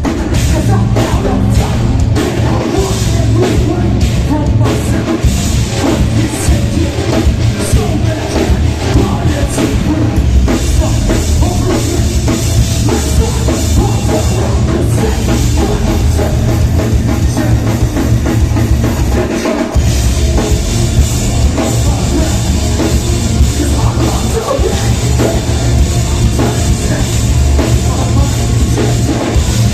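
A live heavy metal band playing loud: distorted guitars, bass and a pounding drum kit, with vocals at times.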